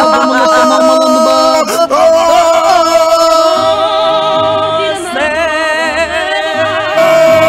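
A man's voice yelling in long, drawn-out, sung-out notes, with a few short breaks and the pitch wobbling in places. It is on-air shouting while the phone line is down.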